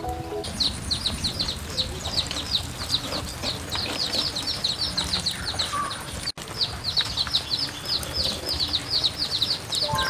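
Small birds chirping in a dense, quick stream of short downward-sweeping notes, several a second, over a low outdoor background; the sound cuts out for an instant a little past halfway.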